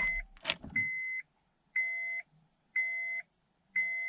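Electronic warning chime of a 2003–2007 Honda Accord beeping in a steady series, one short tone about every second, with a click or two near the start.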